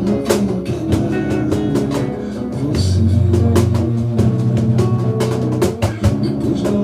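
Batucada, Brazilian samba percussion, playing a dense rhythm: many sharp drum strikes over low, ringing drum tones.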